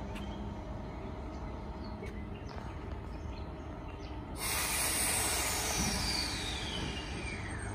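Transperth A-series electric train pulling into the platform: a low running rumble, then about four seconds in a sudden loud hiss with a high whine that falls steadily in pitch as the train slows.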